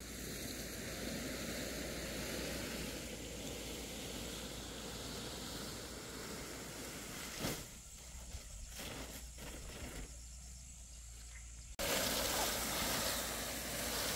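Steady outdoor hiss of air and leaves, with one knock about halfway through. Near the end it jumps suddenly to a louder rustling noise.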